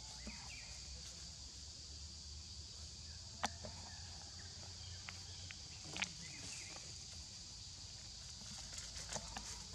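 Dry leaf litter crackling and rustling as young macaques shift and scamper over it, with two sharp clicks about three and a half and six seconds in and a flurry of small crackles near the end, over a steady high hiss.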